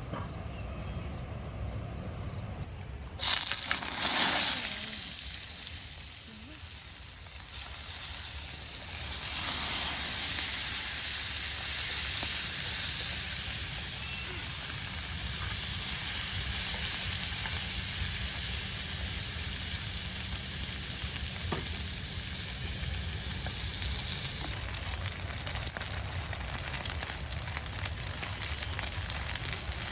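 Food hitting hot oil in a pan with a sudden loud sizzle about three seconds in, then settling into a steady frying sizzle.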